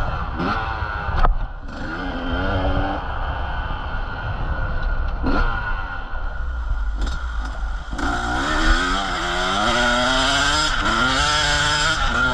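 Motocross bike engine revving, its pitch rising and falling repeatedly as the throttle is worked, with a sharp knock about a second in.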